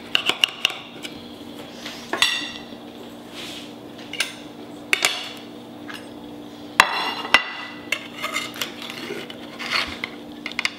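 Dishes and cutlery clinking: a kitchen knife and a metal serving spatula knocking and scraping against a ceramic platter, with several short ringing clinks and one louder clatter about two-thirds of the way through, over a steady low hum.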